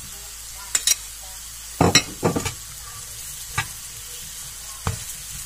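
Vegetables sizzling in hot oil in a frying pan as sliced bell pepper is tipped in and stirred with a spatula, with several sharp knocks against the pan.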